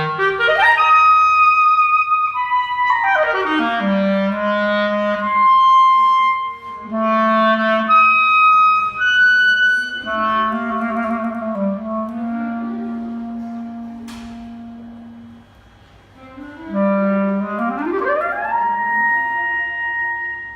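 Solo clarinet playing held notes and quick runs, with fast upward smears to high notes near the start and near the end and a sweeping fall about three seconds in.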